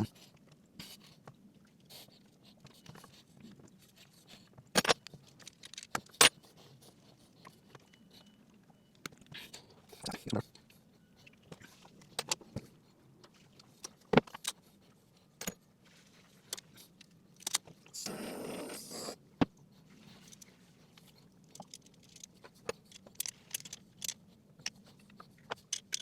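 Hand work on wiring: scattered small metallic clicks, clinks and knocks of tools and crimp connectors being handled, with a brief rasping scrape about two-thirds of the way through.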